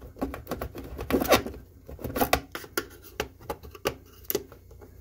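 Thin screwdriver scraping and clicking against the sheet-metal tabs of a bathroom exhaust fan housing as the fan's motor plate is pried loose: irregular scratches and sharp clicks, loudest a little over a second in.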